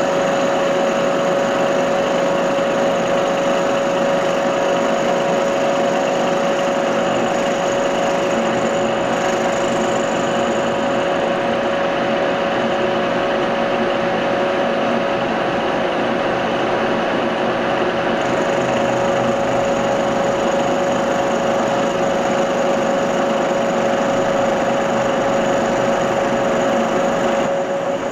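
Bridgeport milling machine running a 10 mm end mill through a mild steel plate to cut a pocket: a steady machining drone with a constant whine, unbroken throughout.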